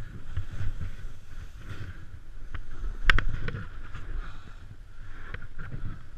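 Skis hissing through deep powder snow on a fast downhill run, under a steady low rumble of wind buffeting the microphone. Several sharp knocks come through, the loudest about three seconds in.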